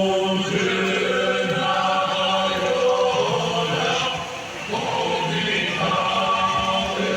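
Music with choir-like singing in long held notes over a steady low drone, dipping briefly about halfway through.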